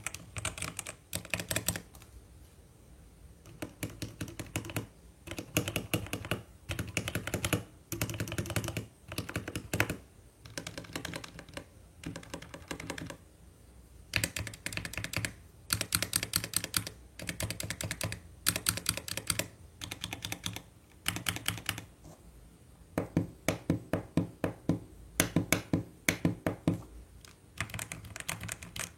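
Typing on a Vortex Series GT-8 gasket-mount mechanical keyboard with Outemu Red linear switches: a fast run of keystrokes in bursts of a second or two with short pauses between.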